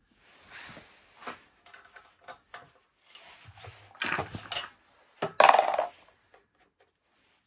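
.308 brass cartridge cases clinking and clattering as they are handled at the reloading bench, in scattered light knocks. Two louder bursts of metallic clinking come about four and five and a half seconds in, the first ending in a brief high ring.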